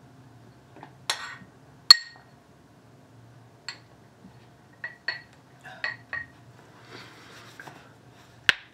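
A spoon and a ceramic bowl clinking: about eight short, sharp clinks spaced unevenly, the loudest about two seconds in.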